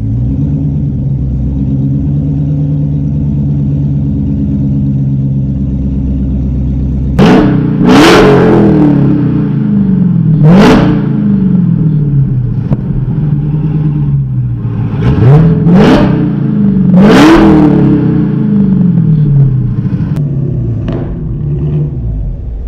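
Dodge Challenger Hellcat's supercharged 6.2-litre HEMI V8 running loud through open straight pipes, with the mid mufflers cut out and no restriction. It idles steadily, then is revved in four quick blips, each rising sharply in pitch and dropping back to idle.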